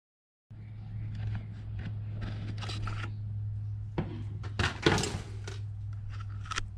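Light clicks and rattles of metal parts and tools being handled on a workbench, over a steady low hum; a louder cluster of knocks comes about four to five seconds in. The sound cuts in abruptly after half a second of dead silence.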